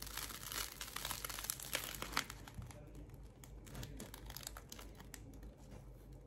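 Crisp crust of a freshly baked baguette crackling and crunching as it is torn apart by hand: dense crackles for the first two seconds or so, then fewer and sparser.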